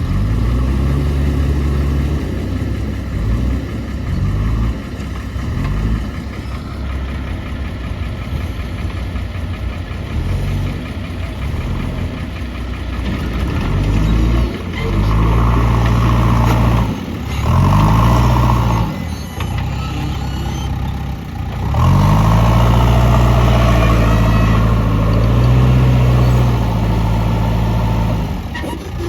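JCB 3DX backhoe loader's diesel engine running, revving up under hydraulic load and holding high several times, about 15, 18 and 22 seconds in, then dropping back toward idle between the work cycles.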